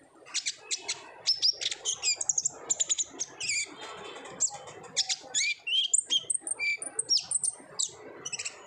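Olive-backed sunbird (konin) singing in fast, busy runs of high chirps and sharp down-sweeping notes with short trills.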